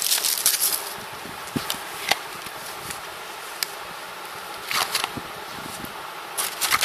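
Photo cards and album packaging being handled: a burst of rustling in the first second, then scattered light clicks and short rustles over a faint steady hiss.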